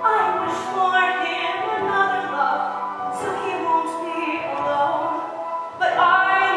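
A woman singing a slow musical-theatre solo song with instrumental accompaniment, holding long notes, with a new phrase starting near the end.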